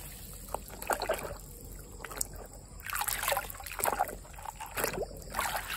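Muddy water sloshing and splashing in a basin as a hand swishes a small plastic toy tractor through it, in several irregular bursts.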